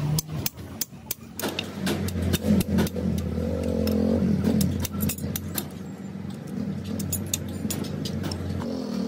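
A motor vehicle engine running and revving, its pitch rising and falling about three to four seconds in and again near the end, over a scatter of sharp metallic clicks and taps.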